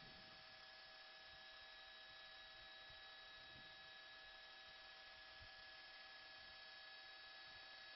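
Near silence: a faint steady electrical hum with a few thin steady tones over hiss.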